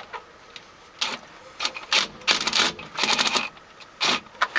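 A screw being backed out with a driver, in several short bursts of rapid mechanical clicking.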